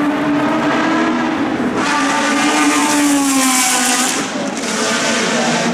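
Historic single-seater formula racing car engine running at speed along the main straight; a car passes loudest about two seconds in, its note falling in pitch as it goes by and fading after about four seconds.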